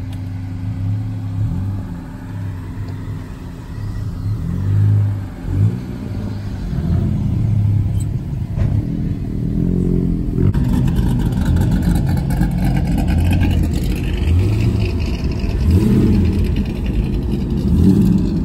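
A car engine nearby running and being revved, its pitch rising and falling again and again over a steady low rumble.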